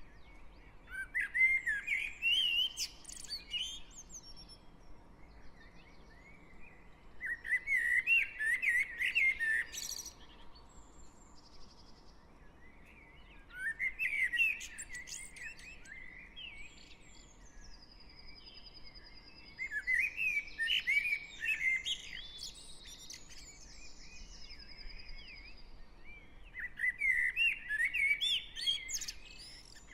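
Dawn chorus of garden songbirds. One bird sings loud warbled phrases of two to three seconds, five times, with pauses of a few seconds between them. A thin, high, even trill from another bird sounds in the gaps, over a faint low hum of distant traffic.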